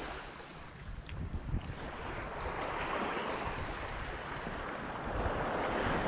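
Small waves washing up onto a sandy shore, the rush swelling and easing, with wind buffeting the microphone.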